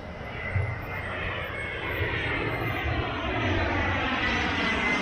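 Twin-engine jet airliner approaching low overhead: a rushing jet engine sound growing steadily louder, with a steady high whine running through it.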